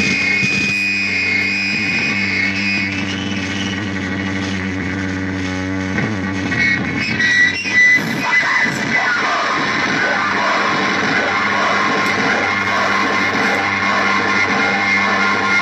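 Experimental noise music: layered steady drones, low hums under a high sustained tone. About six seconds in the low drones stop and it turns into a denser, harsher noise wash with a steady high whine, swelling louder a couple of times.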